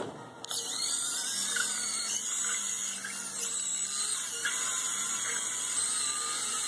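Small electric drive motors of a model lawnmower robot whining at high pitch as it drives and spins in place, the pitch rising and falling as it is steered. The whine starts about half a second in.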